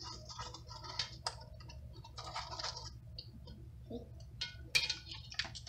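Plastic measuring spoons clicking and scraping as powdered pectin is scooped and tipped into a pot of chopped peaches, a scatter of light irregular clicks.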